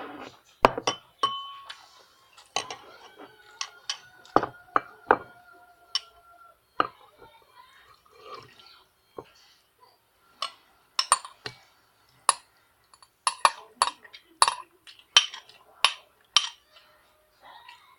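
Chopsticks clinking and knocking against bowls and dishes while eating, a string of sharp clicks, some strikes leaving a bowl ringing briefly; the clicks come quicker in the second half.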